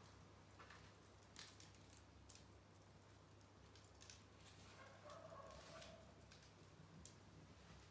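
Small wood fire burning faintly, with scattered crackles and pops over a steady low hum. About five seconds in, a short faint tone is heard.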